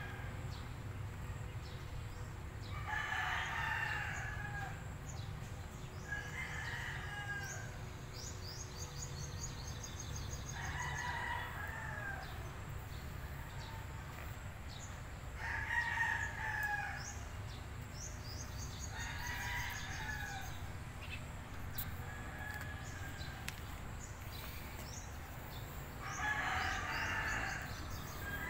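Chickens calling every few seconds, among them rooster crows, each call about a second long and the loudest about halfway through. Small birds chirp faintly between the calls over a low steady background rumble.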